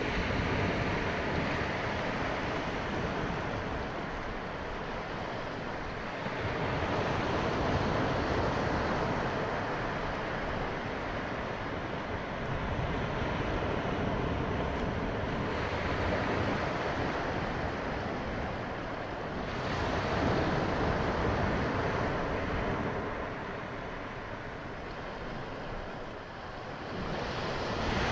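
Small waves breaking and washing up a sandy beach, the surf swelling and ebbing every six seconds or so.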